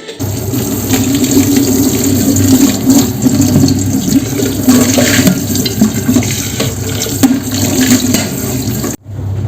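Water running hard from a kitchen tap into a sink, a steady rushing splash. It cuts off abruptly about nine seconds in and a quieter rushing sound follows.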